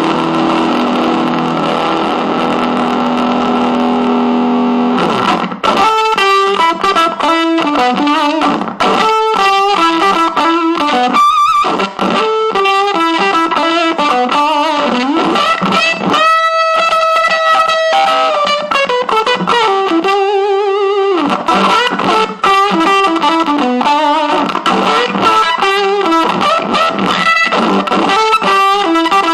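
Electric guitar played through a Squidworks Fuzz Aldrin one-knob fuzz pedal. A chord rings for about five seconds, then fast single-note lead lines follow. Near the middle a long held note slides down in pitch.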